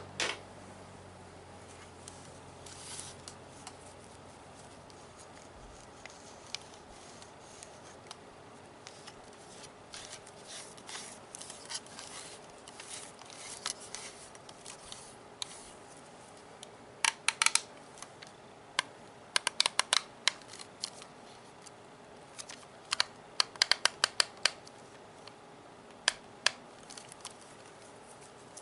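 Hard plastic Nerf gun being handled up close: soft scratchy rubbing through the first half, then short bursts of quick, sharp clicks on the plastic, grouped in several runs from about halfway on.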